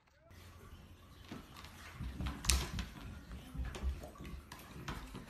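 Soft, irregular thumps and a few sharp clicks on a treadmill over a steady hiss, with the loudest click about two and a half seconds in.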